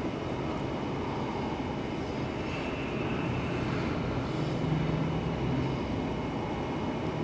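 Steady engine rumble, with a low hum that swells about halfway through and then fades.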